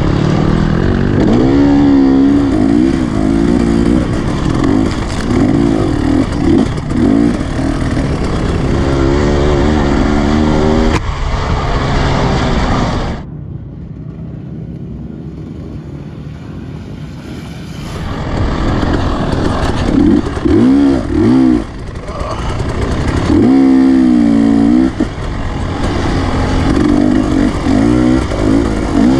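Two-stroke dirt bike engine revving up and down hard, heard close up from the rider's position, with repeated rising and falling pitch. About 13 seconds in it gives way to a quieter, more distant dirt bike for about five seconds, then the close-up revving comes back.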